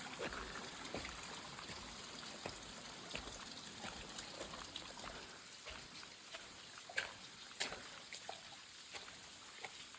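Hot spring water trickling and dripping out of the rock walls: a faint steady trickle with scattered single drips, a few louder drips in the second half.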